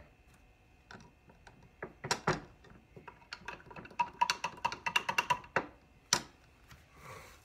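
Metal spoon stirring a drink in a tall glass, clinking against the sides about four to five times a second for a couple of seconds with the glass ringing under the clinks. A few louder single knocks come before the stirring and one after it.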